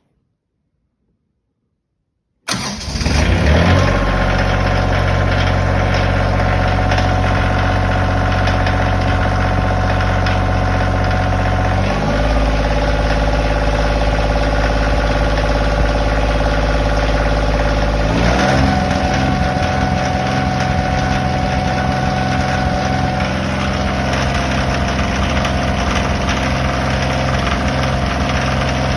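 Kioti engine started with the key, catching about two and a half seconds in and then running steadily, its speed shifting twice, near the middle and about two-thirds through. It carries the knock that a dealership service manager calls normal for Kioti engines and a private buyer does not.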